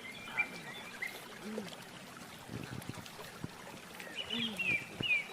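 Wet chewing and smacking of raw food, with scattered clicks, mixed with brief murmured voice sounds and a few short high falling squeaks near the end.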